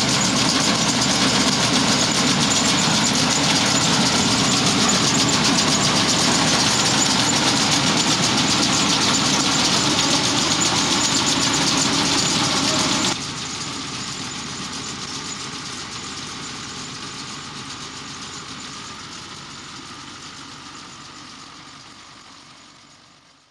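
Tractor engine running steadily while pulling a round baler through the hay. The sound drops suddenly about halfway through, then fades away toward the end.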